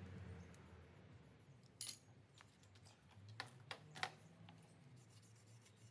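Near silence over a low hum, broken by a few small, sharp clicks and taps from handling, clustered between about two and four seconds in.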